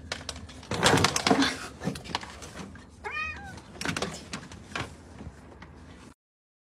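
Domestic cat meowing once, about three seconds in, amid scuffling and rustling as it thrashes while tangled in charger cables on a wooden floor.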